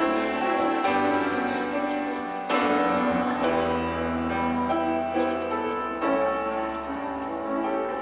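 Instrumental keyboard music: sustained chords with a held bass note, the chord changing every second or two.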